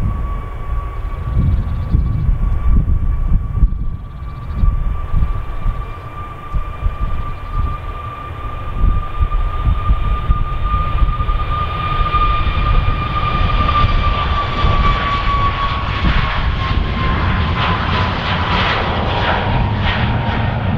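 Boeing 737 MAX 8-200 jet's CFM LEAP-1B turbofans at take-off power during the take-off roll. A steady high whine falls in pitch as the jet passes, over a deep rumble, and a roar builds toward the end as the aircraft rotates to lift off.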